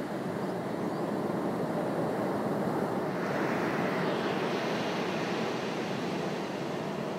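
Ocean surf washing on a beach: a steady rush that swells a little about halfway through.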